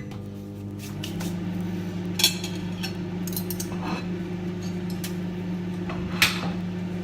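Microwave oven running with a steady hum, heating sausage and bacon, with a couple of light clicks over it.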